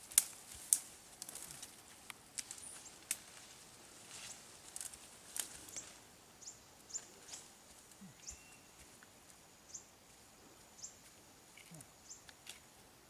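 Footsteps through grass and scrub, with twigs snapping and cracking sharply in the first few seconds. In the second half they give way to short high chirps repeating every half second or so over a faint steady high hum.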